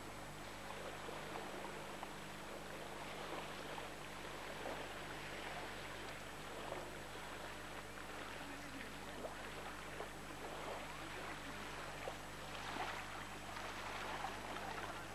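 Faint beach ambience of wind and surf, an irregular hiss that swells softly now and then, over a steady low hum.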